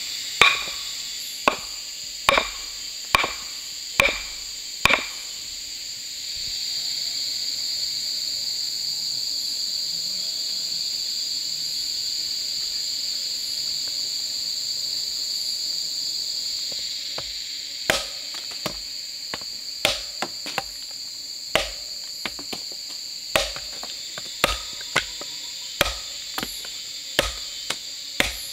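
Axe blows chopping wood, sharp separate knocks about once a second, with a steady high shrill of crickets and insects underneath. The chopping stops for about twelve seconds, leaving only the insects, then resumes at an uneven pace.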